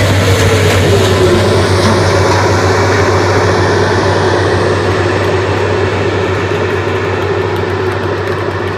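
Loud electronic bass music over a club sound system, picked up by a phone: a sustained heavy drone with a steady low bass, a tone that slides down about a second in and then holds, and a noisy wash whose high end slowly fades.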